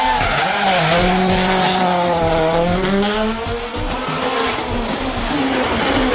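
Rally car engine running hard under load, its pitch sagging and then climbing again about three seconds in.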